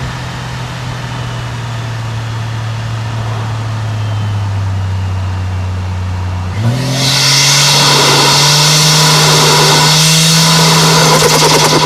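Toyota 1JZ-GTE turbocharged straight-six running on the road: a steady engine and exhaust note that sinks slowly for the first half. About six and a half seconds in it comes on the throttle: the sound gets louder, the pitch steps up and keeps climbing slowly, with a loud rushing hiss on top.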